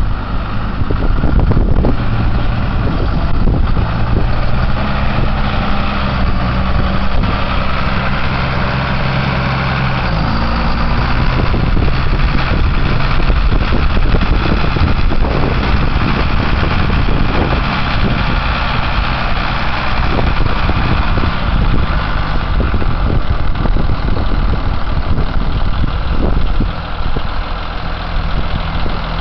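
Case IH MXM120 tractor's diesel engine running steadily as the tractor drives up, its note changing about ten seconds in, then idling at rest.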